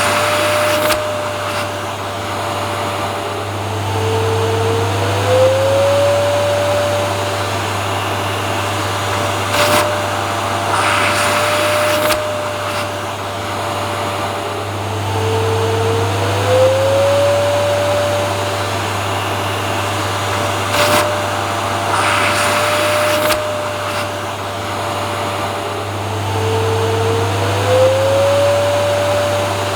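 Vacuum cleaner running steadily, a low motor hum under a whine; three times, about every eleven seconds, the whine slides up in pitch, with brief rushes of airflow hiss in between, repeating like a loop.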